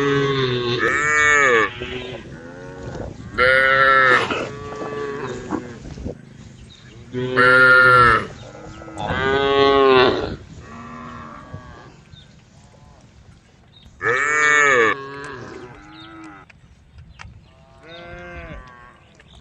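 Cows mooing: about six loud moos, each roughly a second long, every few seconds, with fainter moos between them.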